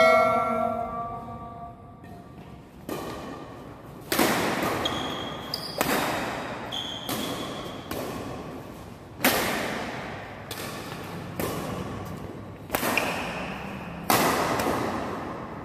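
Badminton rackets hitting a shuttlecock back and forth in a doubles rally, a dozen or so sharp hits at uneven intervals, each echoing in the large hall, with a couple of short high squeaks from shoes on the court. A chime fades out in the first second.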